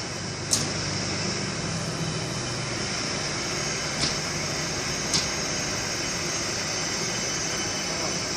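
A Stadler FLIRT electric multiple unit standing at the platform, its onboard equipment giving a steady whirring hiss over a low hum that fades after about three seconds. Three short, sharp high clicks come through, one about half a second in and two more around four and five seconds.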